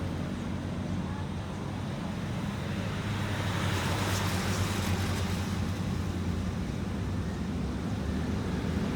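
Steady road traffic with engine hum and tyre noise, swelling briefly as a vehicle passes about four seconds in.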